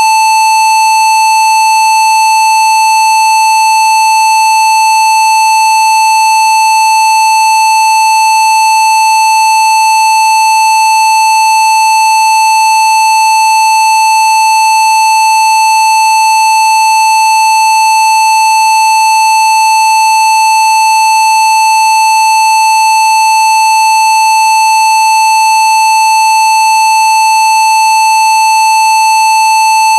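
Steady electronic test tone at 880 Hz, held loud and unchanging, with a row of fainter overtones above it: a Rife frequency tone.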